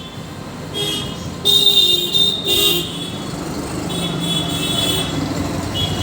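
Vehicle horns honking several times over steady street traffic noise, the loudest blast about one and a half seconds in.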